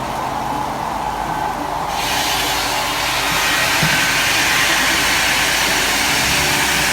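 Steady machinery noise with a hum and hiss; about two seconds in the hiss suddenly gets louder and stays that way.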